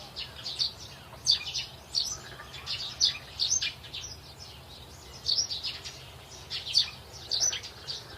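Caged pet birds chirping in short, high clusters of calls every second or so, some of the clusters several chirps quick together.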